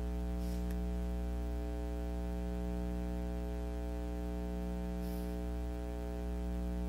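A church keyboard holds a steady synthesizer pad chord under a low hum, unchanging throughout.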